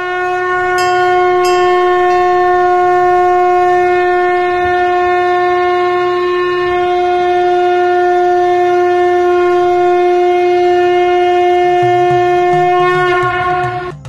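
Sangu, a conch shell trumpet, blown in one long steady note held for about thirteen seconds, then fading out near the end.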